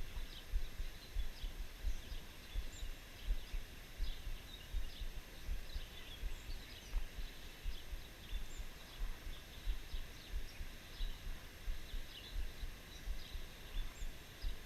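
Small birds chirping here and there over irregular low thumping and rumbling, like wind buffeting the microphone.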